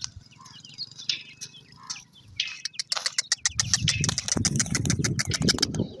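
Francolin chicks giving short, high peeping calls, then from about halfway a loud stretch of dense rustling and scuffing close to the microphone that stops just before the end.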